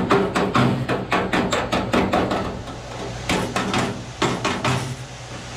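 Rapid hammer blows, about five a second, in two runs with a short pause about three seconds in, over a steady low hum.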